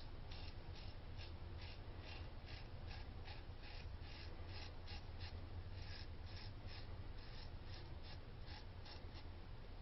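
Valet AutoStrop safety razor with a vintage Valet single-edge blade scraping through lathered stubble in short, quick strokes, about three a second, over a faint steady hum.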